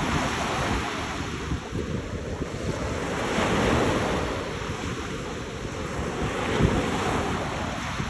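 Ocean waves washing onto a beach, a continuous surf hiss that swells to its loudest about halfway through and again near the end. Wind buffets the microphone with a ragged low rumble.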